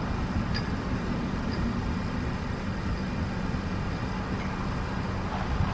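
Steady rumble of road traffic with a low hum, swelling briefly near the end.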